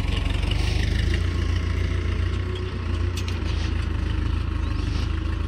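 Swaraj tractor's diesel engine running steadily beside a hitched trolley, a deep, even chugging with a fast regular beat.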